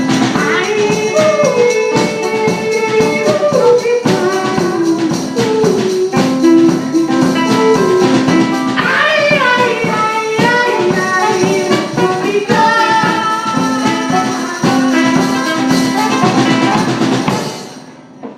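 Live band playing a song, a voice singing the melody over the instruments with a steady beat; the music stops shortly before the end.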